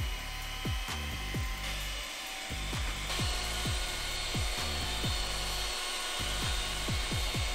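Electric hand mixer running steadily with a high motor whine, its beaters working through sweet potato pie filling to break up the eggs. Background music with deep falling bass beats plays over it.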